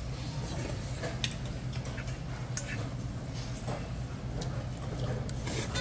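Scattered light clicks of metal chopsticks against a metal bowl, the sharpest about a second in, over a steady low hum.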